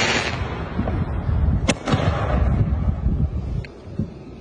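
A 16-shot cake of 4-inch display shells firing: a noisy hiss at the start, one sharp bang about a second and a half in, and a low rumble under it all.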